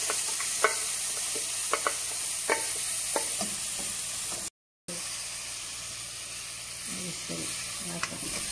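Toasted fideo noodles sizzling in hot oil as blended tomato, onion and garlic sauce is poured in and stirred with a spoon. The spoon clicks against the pot several times in the first few seconds. The sound cuts out for a moment about halfway, then the sizzle goes on under the stirring.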